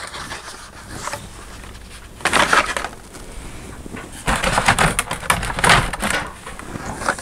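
Carded toy cars in plastic blister packs being handled and shuffled against the inside of a hard plastic storage tub: rustling and scraping, loudest in a short burst about two seconds in and a longer one from about four to six seconds.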